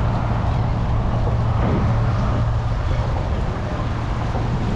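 Steady low hum of traffic on the Sunshine Skyway Bridge alongside the pier, mixed with wind noise on the microphone.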